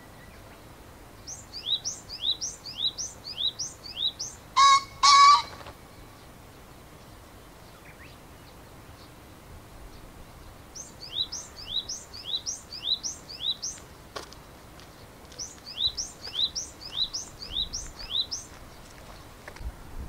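Male green pheasant giving its loud two-note territorial 'ken-ken' crow about five seconds in. Around it a small songbird, taken for a Japanese tit, repeats a high two-note 'tsupi' phrase about twice a second in three runs.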